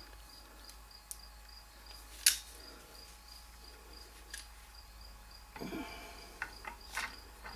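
A cricket chirping in fast, even pulses, with a few sharp clicks and a brief clatter of tools being handled; the loudest click comes about two seconds in.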